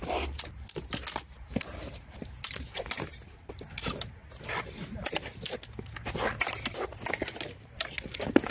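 LK Chen Han sparring swords clacking against each other and against protective gear in quick, irregular strikes during free sparring, with scuffing on the ground between exchanges.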